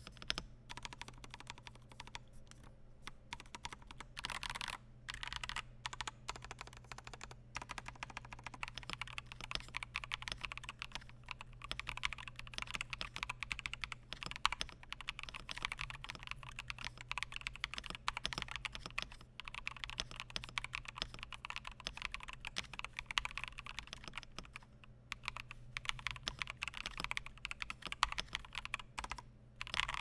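Fast, continuous typing on an Akko 5075S gasket-mount keyboard with unlubed stock Strawberry Milk linear switches and PBT Cherry-profile keycaps, with a few brief pauses. The board's stock sound has a slight hollowness, which the typist puts down to the gasket-mounted case.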